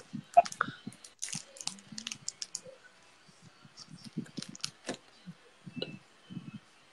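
Irregular light clicks and taps, scattered unevenly, mixed with short low sounds.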